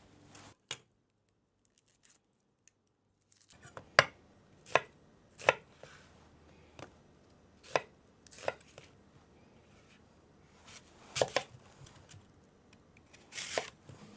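A kitchen knife rough-chopping a peeled onion on an end-grain wooden cutting board: single sharp strikes of the blade through the onion onto the wood, unevenly spaced at about one a second, starting a few seconds in.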